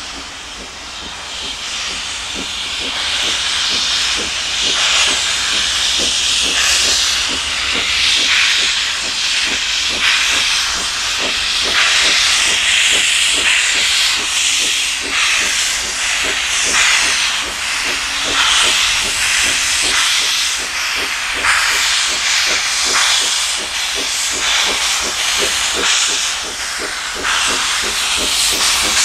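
A 0-4-0 saddle-tank steam locomotive working hard as it approaches, with a steady steam hiss and a regular beat of exhaust chuffs. It grows louder over the first few seconds.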